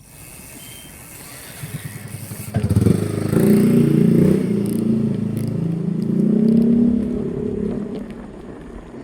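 A motor vehicle's engine passing close by. It comes in about two and a half seconds in, its pitch wavers up and down, and it fades near the end.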